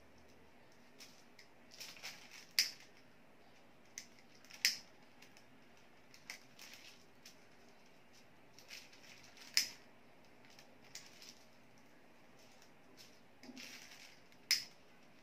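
Hand-held lighter being struck again and again, four sharp clicks a few seconds apart, with soft rustling of the paper kite and its bamboo frame being handled between them.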